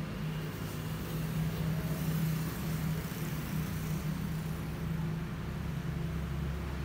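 Steady low mechanical hum with a faint hiss behind it.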